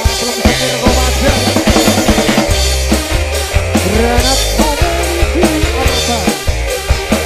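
Live dangdut band playing an instrumental passage: a drum kit beat over a stepping bass line, with a melodic lead whose notes bend up and down.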